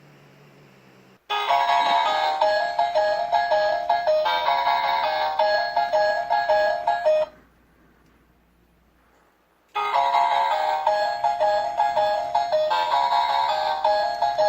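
A bright, bell-like tune of quick notes plays for about six seconds, stops, and after about two seconds the same phrase repeats.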